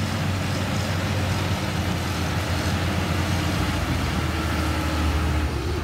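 Motor grader's diesel engine running steadily at a low, even hum as the machine drives along a muddy dirt road.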